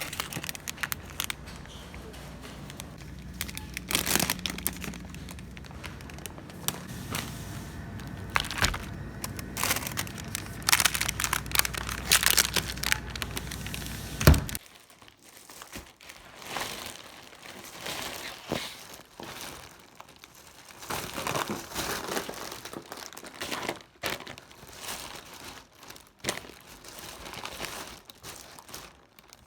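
Packaging crinkling and rustling as it is handled, with irregular crackles and clicks. A low background hum cuts off about halfway through.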